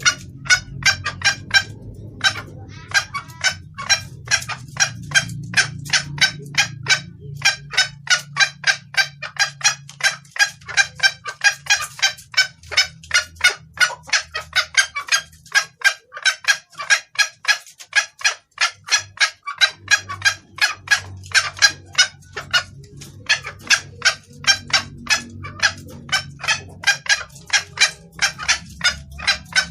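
Junglefowl hen calling to attract a male: a rapid, unbroken series of short, sharp clucks, about three to four a second.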